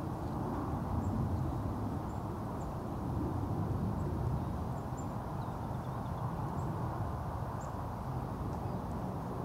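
Outdoor ambience: a steady low rumble, with faint, short, high-pitched bird chips now and then.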